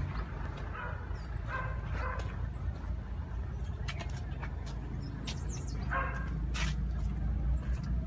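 Steady low rumble of a trailer concrete pump's engine, with a dog barking a few short times over it, about one and a half, two and six seconds in.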